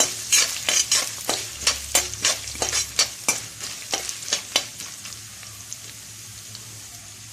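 A spoon scraping and stirring grated coconut and spices frying in oil in a kadai, about three strokes a second over a sizzle. The stirring stops about two-thirds of the way through, leaving a quieter sizzle.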